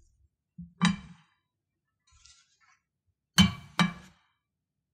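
Wooden salad spoons knocking against a ceramic bowl while tossing a salad: one knock about a second in, a soft scrape, then two sharp clinks close together near the end.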